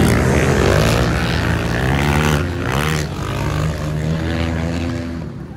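Dirt bike engines revving hard through a corner, the pitch dropping and climbing again with throttle and gear changes about two and a half seconds in. The engine note is loudest near the start and fades toward the end as the bike pulls away.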